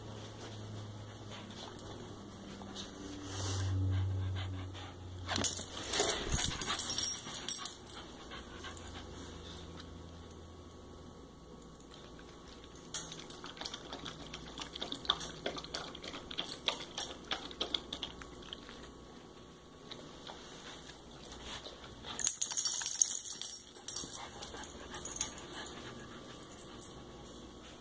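Australian shepherd–corgi mix dog whining in excitement, with several bursts of clicking and rattling as it moves about.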